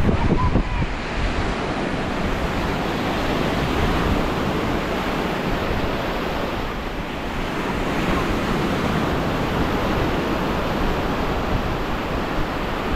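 Small waves washing onto a sandy beach, swelling and easing every few seconds, with wind buffeting the microphone and a louder gust just after the start.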